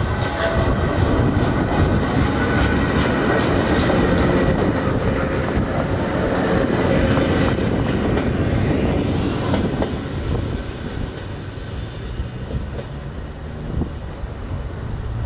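Sr3 electric multiple unit rolling past on the rails, its wheels clicking over the rail joints. It is loudest in the first ten seconds and then fades.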